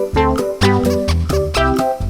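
Background music: an upbeat swing-style tune with plucked guitar and bass on a quick, even beat.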